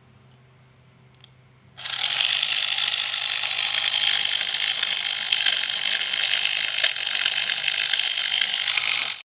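Gears of a correction tape with its casing removed, running in a steady, fast, dense ratcheting rattle. It starts about two seconds in and stops abruptly just before the end.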